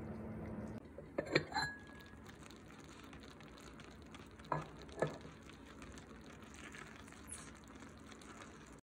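Faint sizzling from a freshly cooked steamed egg in an earthenware pot, with a few sharp clinks of a metal spoon against the pot, one ringing briefly. A low steady hum cuts off about a second in.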